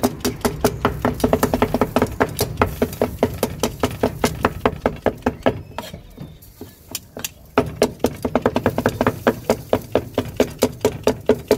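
Cleaver chopping grilled kokoreç on a chopping block: quick, even knocks, several a second, that pause briefly about halfway through and then pick up again.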